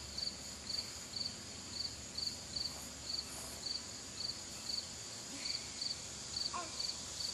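Insects chirping: a short, high-pitched chirp repeating about twice a second over a steady high-pitched insect drone.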